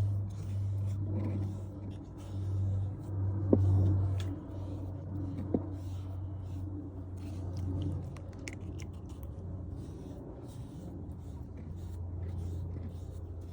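Low, steady hum of a woodworking power tool's motor that swells and eases under load, with a few sharp taps and light scraping.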